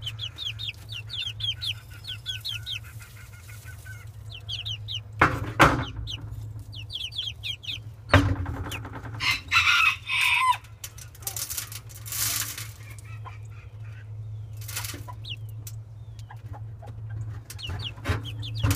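Young chickens peeping and clucking, in quick runs of short rising chirps with some lower calls. A few loud sudden rustles and knocks come about five, eight and eleven seconds in, over a steady low hum.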